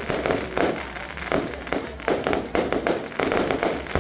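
Fireworks going off in quick succession: a string of sharp bangs, six or so in a few seconds, each with a short rumbling tail.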